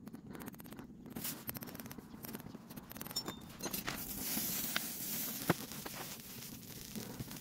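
A wire rod scrapes and ticks against a freshly cast metal disc in its sand mould. About four seconds in comes a spray bottle's hiss as liquid is sprayed onto the hot casting and beads on its surface, with a sharp click about a second later.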